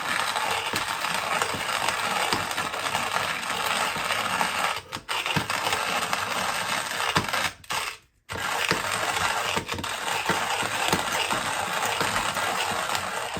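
Hand-cranked coffee grinder crushing whole coffee beans on its coarsest setting: a steady gritty crunching and crackling, broken by a short pause about five seconds in and a brief stop near eight seconds.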